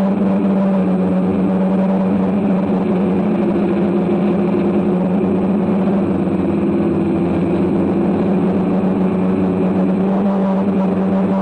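DJI quadcopter drone's motors and propellers buzzing steadily in flight, a continuous hum whose pitch wavers slightly.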